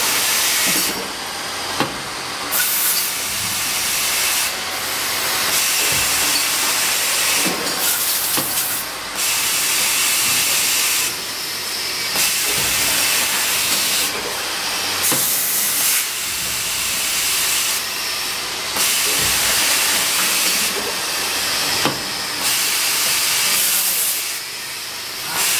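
Multi-station automatic tapping machine running: compressed air hisses in repeated bursts, each a second or two long, switching on and off as the pneumatic cylinders and air nozzles cycle, with a few sharp mechanical clicks.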